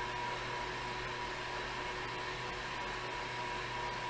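Indoor bike trainer being pedalled, a steady whir with a faint high hum.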